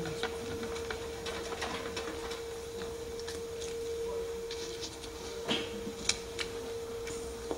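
A steady mid-pitched electrical hum, under faint rustling and a few light knocks from a cloth wiping a plastic sheet and being set down.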